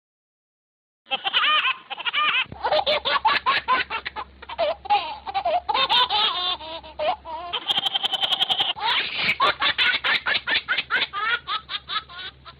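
Hearty, prolonged laughter in quick rapid pulses, starting after about a second of silence.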